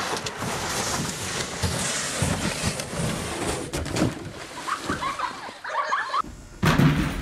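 A plastic kayak sliding down a snowy slope and splashing into a lake, then people's voices shouting.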